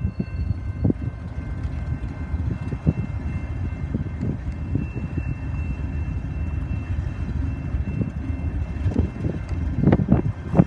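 Coal train led by a CP GE ES44AC diesel-electric locomotive approaching slowly as it slows to a stop: a steady low rumble of engine and wheels with a thin, steady high whine above it, growing rougher and louder with knocks near the end as the locomotive draws close.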